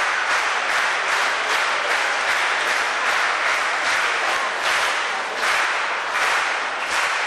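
An audience applauding: dense, steady clapping with no voices over it.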